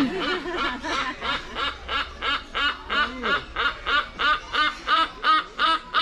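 Silvery-cheeked hornbill calling: an even series of short nasal, quacking calls, about three a second, that keeps going without a break.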